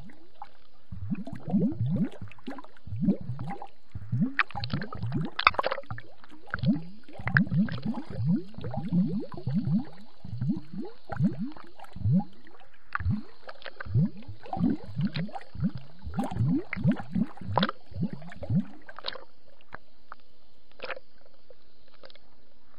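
Water gurgling and sloshing around a camera held underwater, heard as quick, irregular runs of low bubbling that grow sparse near the end.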